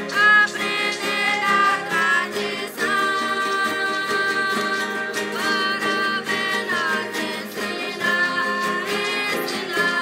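A song: a voice holds long notes that bend and glide between pitches, over plucked acoustic guitar.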